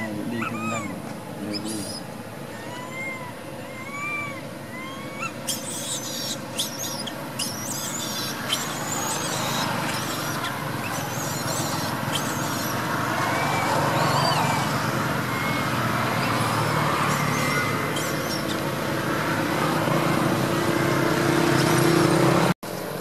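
Infant macaque crying with short, repeated calls that rise and fall in pitch, several a second at the start. Through the second half a steady rumbling noise grows louder and cuts off suddenly near the end.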